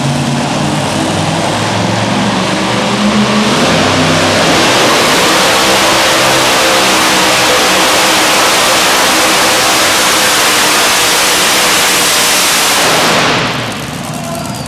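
Supercharged engine of a Super Modified two-wheel-drive pulling truck, running low for the first few seconds, then at full throttle from about four seconds in as it pulls the sled, loud and steady. The throttle comes off abruptly near the end and the engine drops back to a quieter run as the pull ends.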